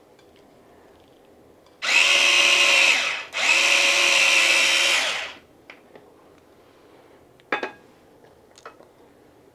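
Electric mini chopper's motor whirring in two pulses, about a second and a half and then about two seconds with a brief break between, coarsely crushing tomatoes, ginger and green chillies. A few light knocks follow near the end.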